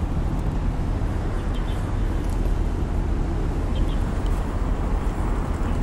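Steady low rumble of city traffic, an even background noise with no distinct events.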